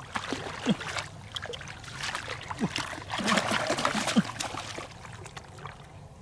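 Water splashing and trickling in irregular bursts, busiest around three to four seconds in, fading toward the end.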